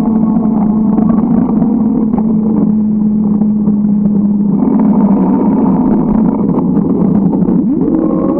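Motor vehicle engine running with a steady low hum over road noise, its pitch rising shortly before the end as it speeds up.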